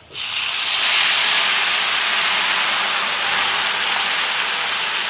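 Thin flour batter poured into very hot oil in a wok over frying tempeh, setting off loud, steady sizzling that starts suddenly just as the batter hits the oil and eases off only slightly.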